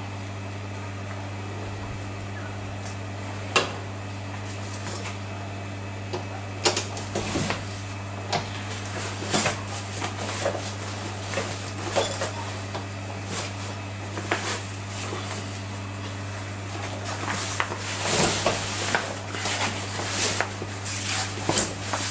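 Folding aluminium-framed solar panel being pulled out of its fabric carry bag: rustling, scraping and knocks that start a few seconds in and get busier toward the end, over a steady low hum.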